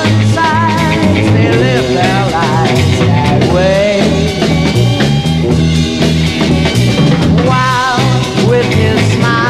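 1960s beat-pop band playing, with drum kit and a steady bass line under a wavering lead melody.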